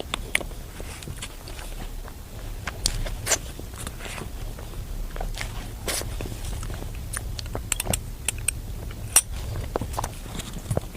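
Close-miked eating of chocolate mousse cake: soft chewing and wet mouth clicks in an irregular scatter over a low steady hum.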